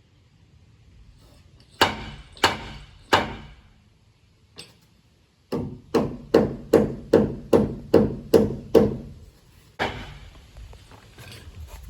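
Hammer blows on wooden wall framing: three spaced strikes, then a quick steady run of about nine strikes at roughly two and a half a second, and one more strike near the end.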